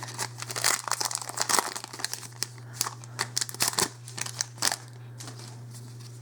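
Foil Magic: The Gathering booster pack wrapper crinkling and tearing as it is opened, a quick run of crackles that stops about five seconds in.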